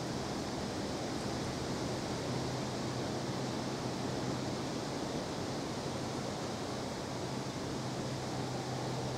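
Steady riverside background noise: an even hiss with a low steady hum underneath and no distinct events.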